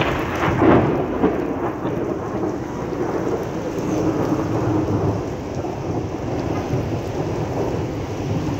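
Rain falling on a wet asphalt street, with a low rumble that is loudest in the first second or so.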